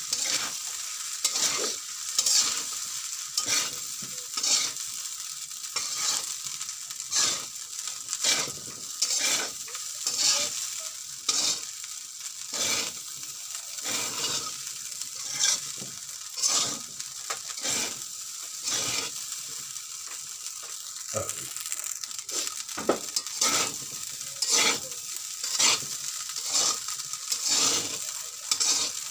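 Metal spatula scraping and tossing rice in an aluminium wok while stir-frying fried rice: a short scrape against the pan a little more than once a second, over a steady faint hiss.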